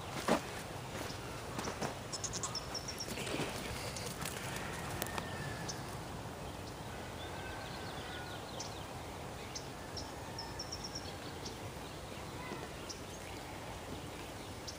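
Outdoor backyard ambience with a steady background hiss. A sharp thump comes just after the start, followed by a few lighter knocks over the next few seconds. Twice a bird gives a quick run of four or five high chirps.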